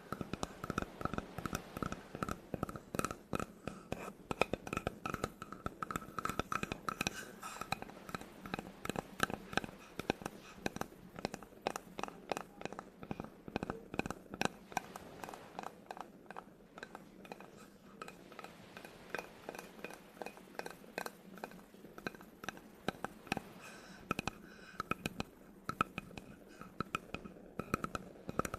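Fingers tapping and scratching on a wooden object: quick, irregular taps, several a second, with scratchy strokes in between.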